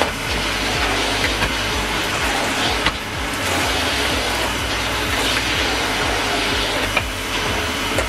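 Numatic Henry cylinder vacuum cleaner running steadily while its floor tool is pushed back and forth over carpet. A few sharp clicks stand out from the steady running.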